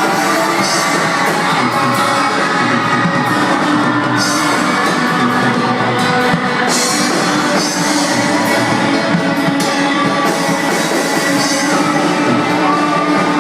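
Rock band playing live, loud and dense, with cymbal crashes every few seconds.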